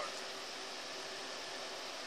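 Steady, even hiss of background room noise with no other events.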